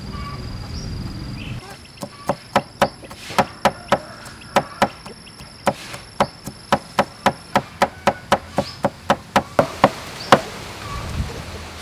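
Cleaver mincing garlic on a wooden chopping board: a quick run of sharp knocks, several a second with short pauses, starting about two seconds in and stopping shortly before the end.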